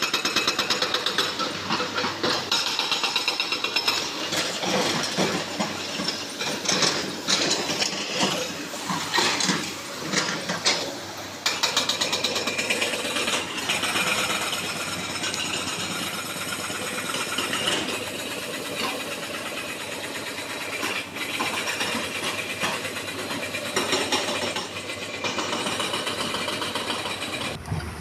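Pneumatic rock drill running continuously: a fast, even hammering rattle with a steady hiss.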